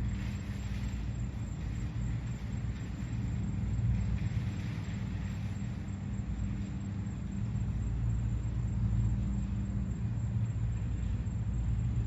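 Steady low engine rumble, with a constant hum underneath.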